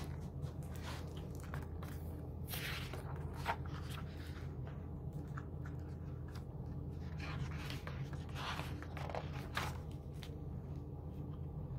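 Pages of a picture book being turned and handled: brief scattered paper rustles and scrapes over a low steady hum.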